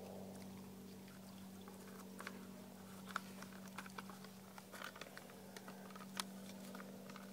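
Faint crinkling and squishing of a plastic bag being kneaded by hand to mix biscuit mix with water, with scattered small clicks, over a steady low hum.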